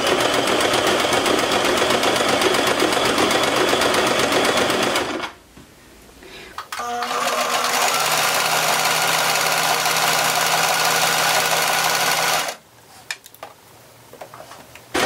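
Inexpensive Singer domestic sewing machine sewing a stretch stitch, running steadily, stopping about five seconds in, starting again a second and a half later, and stopping again near the end.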